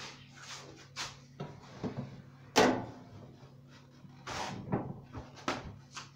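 A series of short, sharp knocks and clatters from things being handled in a kitchen, about six in all, the loudest about two and a half seconds in.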